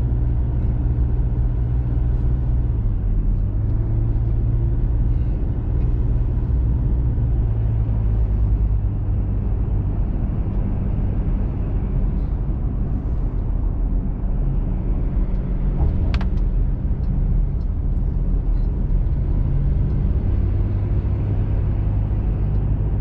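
Steady engine and road rumble heard inside a moving vehicle's cabin on a long climb, with one short click about sixteen seconds in.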